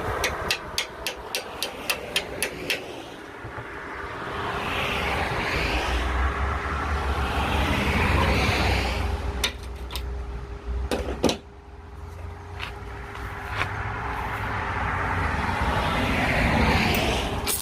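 Small MIG welder's arc: a string of short, sharp pops at first, then longer crackling runs that swell and fade.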